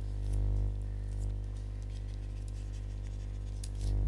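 Steady low electrical hum with a buzz of overtones, over which come faint scattered ticks and scratches of handwriting.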